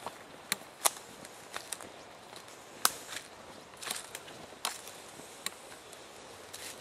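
Footsteps through forest undergrowth and leaf litter, with irregular sharp cracks and snaps underfoot, the loudest about a second in and near three seconds in.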